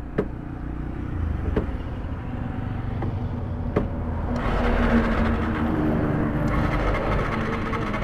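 Motor vehicle engine running with a low rumble, punctuated by a few sharp clicks; about four seconds in it grows louder with a rush of road noise, then eases off near the end.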